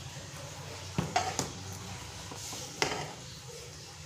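Metal ladle stirring kadhi in an aluminium pot, clinking against the pot: three quick knocks about a second in and another near three seconds, over a low steady hum.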